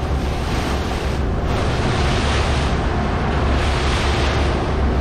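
Motor boat under way: wind buffeting the microphone and water rushing past the hull, which swell and ease every second or so, over the engine's steady low drone.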